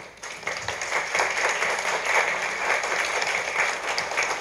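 Audience applauding: many hands clapping together, swelling within the first second and then holding steady.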